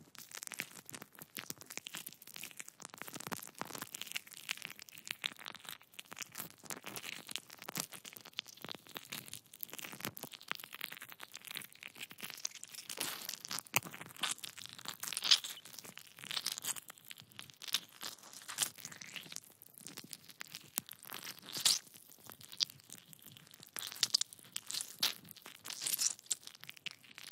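Gory 'intestine squeeze' foley sound effect: continuous fleshy squeezing with dense crackling, and a few louder, sharper cracks about halfway through and again near the end.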